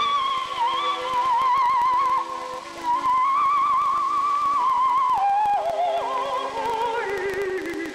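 Background music: a slow melody with heavy vibrato, in a theremin-like or wordless-voice timbre, over sustained lower notes. The melody steps down in pitch near the end.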